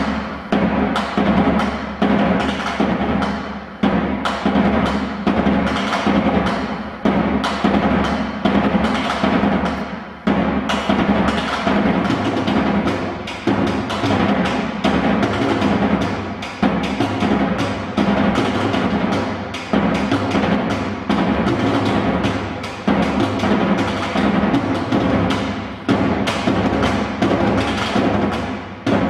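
Drumming: a dense run of fast drum strikes with heavier accents about every second and a half, starting suddenly just before and carrying on without a break.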